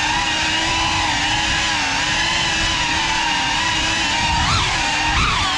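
GEPRC CineLog35 cinewhoop drone's motors and propellers whining steadily in flight, with a rushing low end. About four and a half seconds in, the pitch begins to swoop up and down as the throttle changes.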